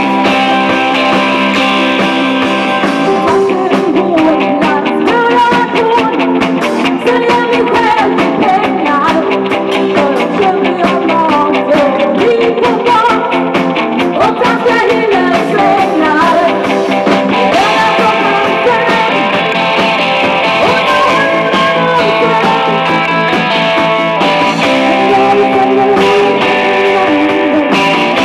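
Live rock band playing, with electric guitar and keyboard, and a singer singing into a microphone. Steady drum hits run through the middle.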